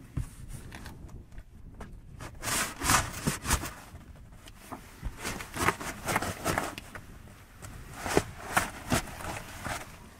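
Irregular rustling and scraping inside a cardboard box, from a person shifting about and handling a camera against the cardboard walls, with a few louder scrapes and knocks.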